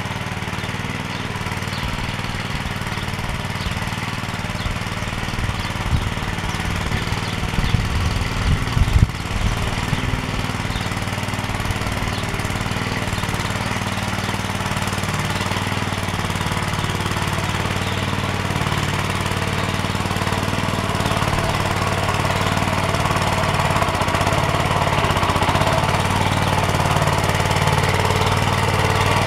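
Small engine of a homemade minitractor running steadily while driving, growing gradually louder as it approaches. A few low thumps stand out about a quarter to a third of the way through.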